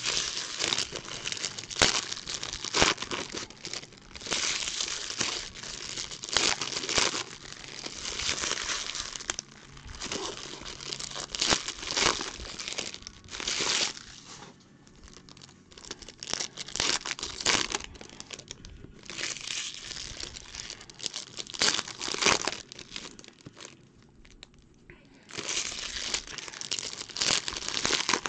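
Foil trading-card pack wrappers crinkling and tearing as packs are ripped open by hand, in irregular bursts with a couple of brief lulls.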